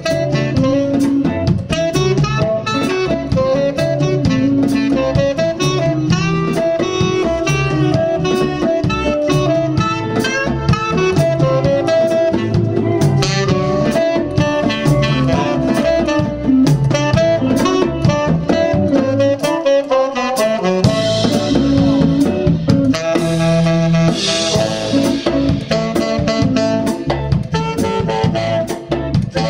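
Live blues band playing: a saxophone solo over drum kit, bass and guitar.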